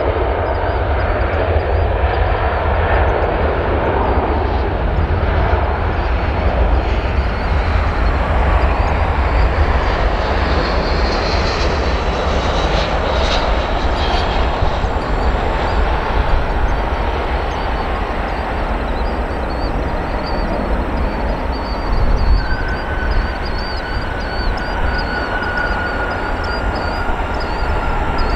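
Boeing 777 jet engines at takeoff thrust during the takeoff roll: a loud, steady rumble. A high whine slides slowly down in pitch in the last few seconds as the jet lifts off.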